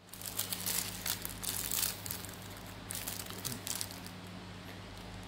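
Clear plastic packaging of small toy packets crinkling as the packets are picked up and handled. The crinkling is strongest in the first couple of seconds and again about three seconds in, over a low steady hum.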